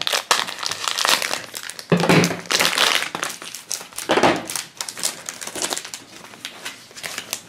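Plastic blind-bag wrapper crinkling as it is cut open with scissors and handled, with a small plastic capsule then fumbled in the fingers. The crinkling is loudest through the first four seconds or so and tails off into quieter handling sounds.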